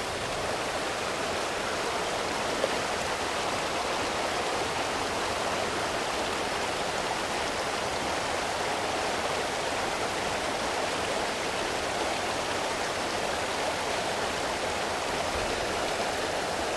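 Water rushing steadily through a narrow concrete spillway channel at a sewer plant's outlet. There is a single brief click about two and a half seconds in.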